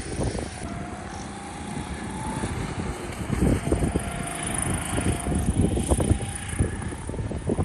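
Go-kart engine buzzing from across the track, its pitch shifting as it runs through the corners, with wind buffeting the microphone, strongest in the middle of the stretch.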